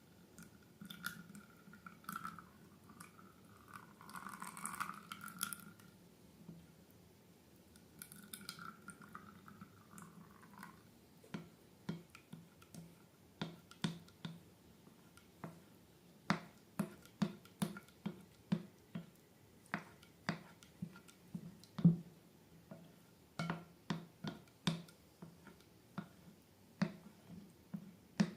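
Slime being squeezed and worked by hand, with soft sticky squishing at first and then a run of sharp wet clicks and pops, about two a second.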